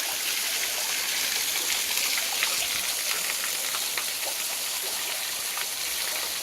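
Small waterfall: water falling and splashing in a steady, even rush, with scattered little splashes through it.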